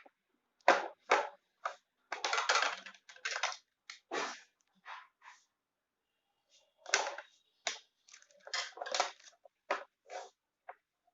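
Unboxing handling noises: an irregular run of short clicks and knocks, with a few longer crinkling or scraping stretches, as packaging is handled.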